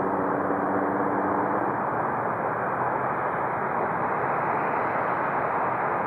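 Boeing 757 freighter on final approach with its gear down: a steady jet-engine rush at constant loudness.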